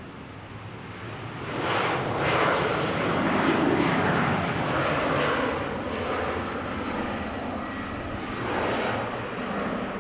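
Twin turbofan engines of an Embraer E195 (GE CF34-10E) at takeoff thrust during its takeoff roll. The jet roar swells about a second and a half in, then wavers as the aircraft accelerates past.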